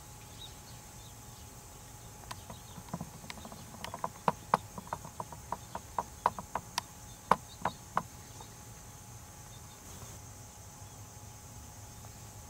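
Insects droning steadily in the background of an open summer field. A little after the start and for about six seconds, a run of sharp, irregular clicks comes two or three a second, louder than the drone.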